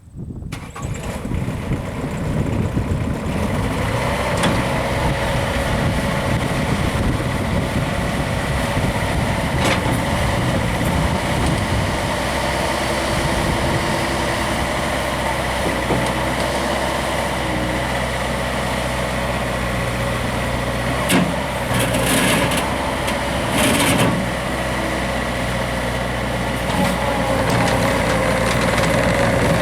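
Diesel engine of a 2005 Bobcat T190 tracked skid steer running steadily, with a few brief louder noises about three-quarters of the way through.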